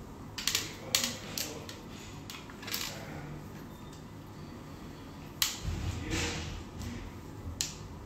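Handheld hair crimper clamped onto and released from sections of hair: sharp, irregular clicks of the plates and handles, about seven in all, with rustling of hair and handling noise between.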